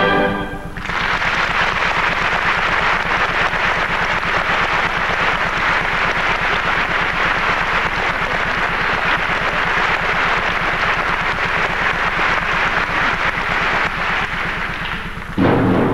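Audience applauding, a dense steady clatter of many hands clapping that eases off a little near the end. Just before the end the orchestra starts up again with timpani.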